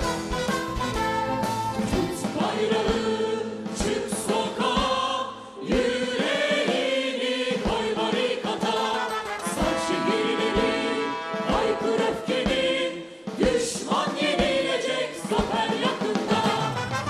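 Large mixed choir of men and women singing together with live instrumental accompaniment and a regular beat, pausing briefly between phrases about five and a half and thirteen seconds in.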